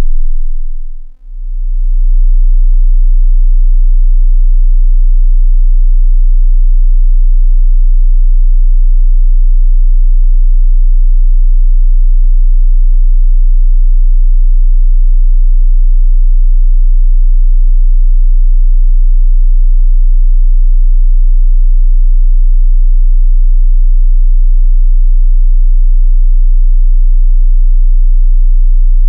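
Pure low-frequency sine-wave test tone. The 20 Hz tone fades out about a second in, a brief cluster of higher tones sounds at the changeover, and then a steady 30 Hz tone holds at full level.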